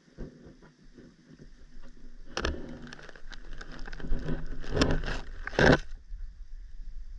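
Handling noise on a GoPro's underwater housing: irregular muffled clicks and knocks over a low rumble that grows louder, with heavier thumps about two and a half, five and five and a half seconds in.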